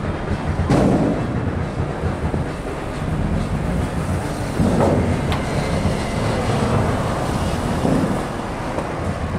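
Steady low rumble of rail and vehicle traffic, with two brief knocks: one just under a second in and one about five seconds in.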